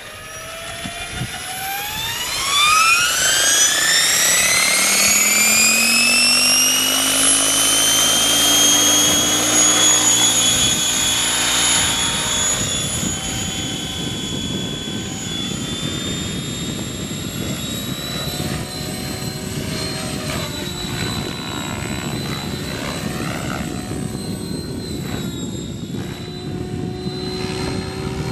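Align T-REX 700E electric RC helicopter spooling up: the whine of its motor and drive gears climbs steeply in pitch over the first few seconds and then holds steady, with a low rotor hum beneath. After lift-off the high whine carries on steadily while the rotor noise rises and falls as it flies.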